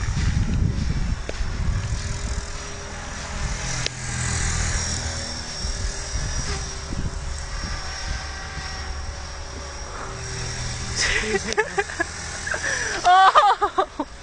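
Blade 400 electric RC helicopter flying, its motor and rotor giving a steady high whine over a low rumble of wind buffeting. A voice breaks in briefly near the end.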